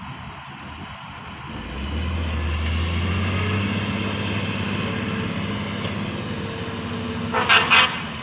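Heavy diesel engine of a dump truck or bulldozer running, swelling in loudness about 1.5 s in and then holding steady. Near the end come two short, loud horn blasts.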